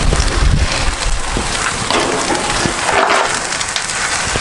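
Pilaf sizzling and crackling in a hot kazan while a spoon stirs it and scrapes the bottom.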